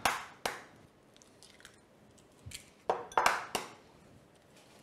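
Eggshells being cracked on a flat wooden cutting board and pulled apart: two sharp cracks at the start, then a quick group of four cracks and crunches about three seconds in.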